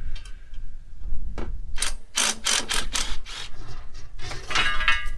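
Hand tools working on the bolted metal frame of a rabbit-cage rack: a quick run of metal clicks and clatters, then a short squeaky screech about four seconds in.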